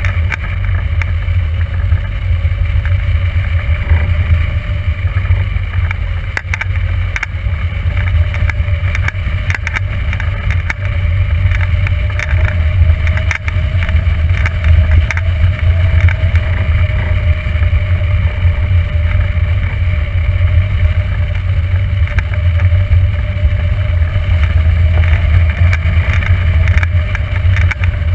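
Airflow buffeting the microphone of a camera mounted on a hang glider in flight: a loud, steady low rumble of wind with scattered crackles.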